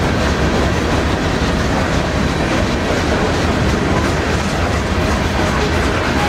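Loaded covered hopper cars of a grain train rolling steadily past, with the continuous rumble and clatter of steel wheels on the rails.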